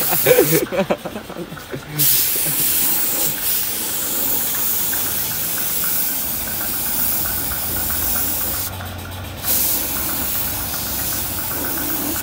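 Compressed-air paint spray gun hissing steadily as paint is sprayed onto a scooter body panel. The hiss stops briefly about a second in and again around nine seconds, when the trigger is let go.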